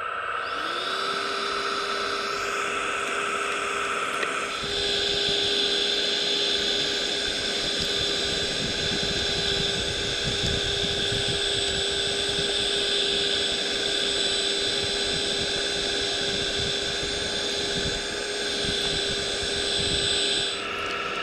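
Small electric suction motor of a scale-model vacuum excavator attachment spinning up with a short rising whine, then running at a steady high whine. From about four seconds in a louder rushing joins it as the nozzle draws loose soil and grit up out of the trench, and both stop just before the end.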